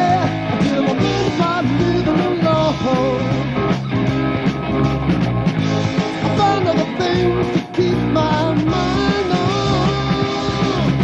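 Rock band music, loud and continuous, with a lead melody line sliding in pitch over a full backing.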